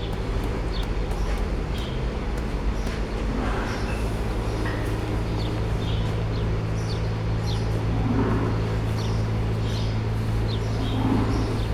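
A steady low mechanical hum, with short high chirps of small birds at irregular intervals.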